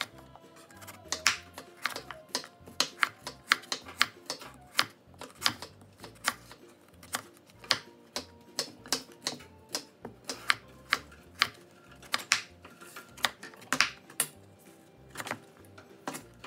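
A kitchen knife slicing through peeled purple sweet potatoes and striking a wooden cutting board: a string of sharp, irregular knocks, about two a second.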